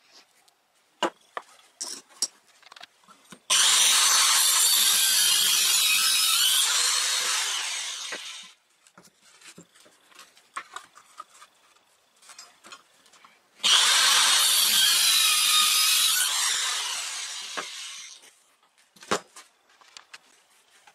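Skil 5330 Multisaw compact circular saw cutting through a pine board twice, each run starting abruptly, lasting about five seconds and winding down at the end. Knocks and clicks of wood being handled come between the cuts.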